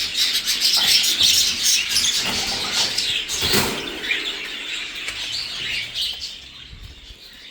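Budgerigars chirping and chattering, many short overlapping calls, with one short louder noise about three and a half seconds in; the chatter thins out toward the end.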